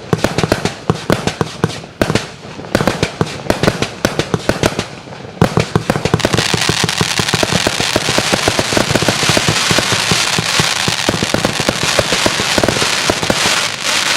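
A 130-shot 1-inch compound firework cake (Firestorm 1.0" BOOM! Showbox) firing. It starts with rapid separate bangs, several a second; from about six seconds in they merge into a dense, continuous barrage of bangs and crackle.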